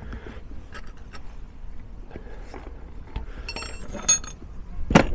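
Metal tools and parts clinking while a new rear shock absorber's top nut is fitted: scattered light taps, then a few ringing metallic clinks and a sharp knock near the end.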